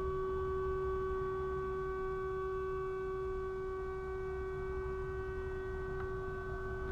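Vehicle alarm sounding as one continuous, unwavering horn-like tone, set off while its driver works on the vehicle. It sounds over a low rumble, with a small tick about six seconds in.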